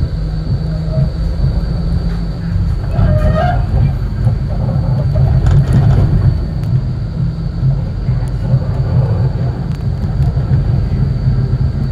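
Melbourne E-class low-floor tram running along street track, heard from inside: a steady low rumble of wheels and running gear.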